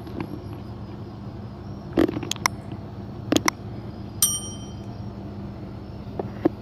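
A few sharp clicks and knocks as plastic toy animals are handled, and a single bright bell-like ding about four seconds in from a subscribe-button overlay, over a steady low background rumble.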